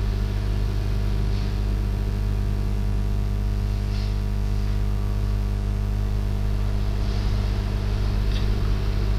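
Steady low electrical hum with a hiss over it, the background noise of the recording microphone; no speech.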